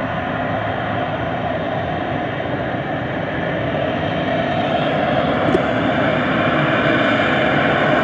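Harrier jump jet's Rolls-Royce Pegasus turbofan holding the aircraft in a hover: a steady jet noise that grows slowly louder.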